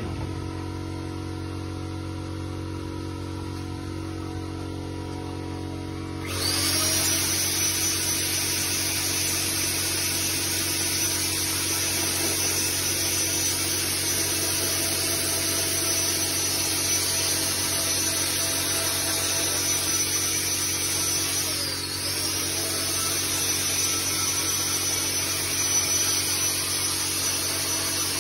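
A handheld electric power tool starts up about six seconds in and runs steadily with a high-pitched motor whine, briefly slowing and spinning back up about three quarters of the way through. Before it starts there is a low electrical hum.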